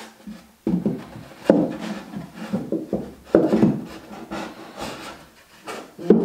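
Handmade solid-wood drawer slid in and out of its cabinet opening several times, wood rubbing on wood with a knock at each stroke, as a snug drawer is test-fitted.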